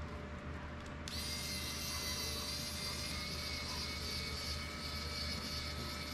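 Steady high-pitched electronic whine from the Geprc Cinelog 35 FPV drone, starting suddenly about a second in as the drone is powered up and holding steady.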